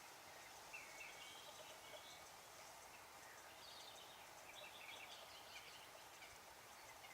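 Faint wetland ambience: several birds calling in short, high chirps and trills, scattered and overlapping, over a low steady hiss.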